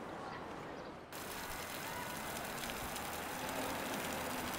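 Steady outdoor city-park ambience, a rushing background noise that jumps up in level and gets brighter at a cut about a second in.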